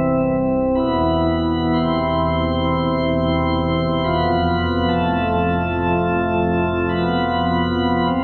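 Roland D-05 synthesizer, a recreation of the D-50, playing a sustained keyboard patch. Held chords change about every one to two seconds.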